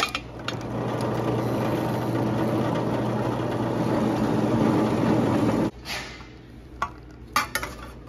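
Drill press running a large bit down through thin sheet metal: a steady grinding over the motor's hum, which cuts off abruptly about five and a half seconds in. A few light knocks follow.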